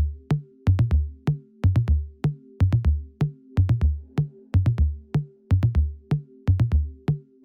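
Electronic dance music with a drum-machine kick beat, about three thumps a second, under a held synth chord; it starts abruptly out of silence.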